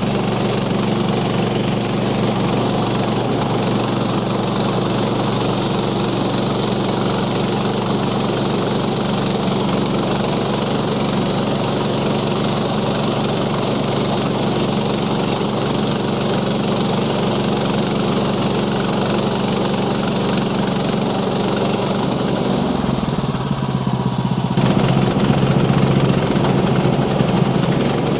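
Small gasoline engine of a Woodland Mills portable bandsaw mill running steadily at speed while milling poplar. Its note changes and gets a little louder near the end.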